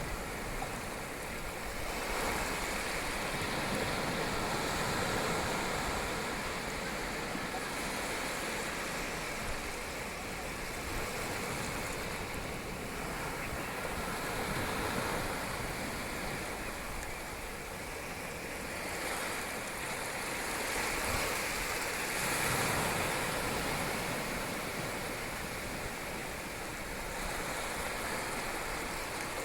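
Ocean waves breaking and washing onto a beach: a continuous rush of surf that swells and eases slowly.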